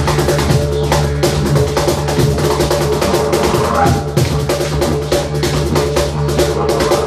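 A didgeridoo holds a steady low drone while a cajón and a hand drum are played in a quick rhythm of slaps and strikes. About halfway through, the didgeridoo's overtones sweep upward.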